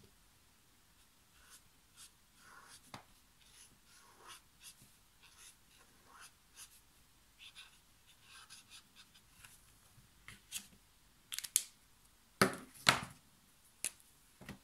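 Brush-tip watercolour marker (Ecoline brush pen) drawn across rough torchon cellulose watercolour paper in soft, short scratchy strokes. Near the end come a few sharp clicks and knocks, two of them much louder, as markers are capped, set down and picked up.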